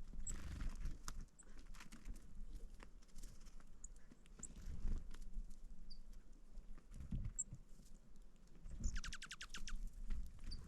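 Outdoor snowstorm ambience: a low, uneven rumble with scattered small ticks and pattering, a few short high chirps, and a quick trill of about ten notes near the end.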